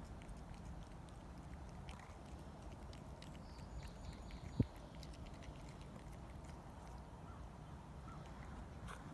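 A cat eating caviar, with faint scattered clicks of chewing and licking over a low steady rumble. A single short low thump about halfway through is the loudest sound.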